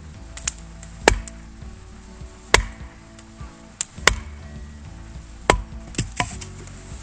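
Axe splitting firewood: four sharp chops about a second and a half apart, with a few lighter knocks between them.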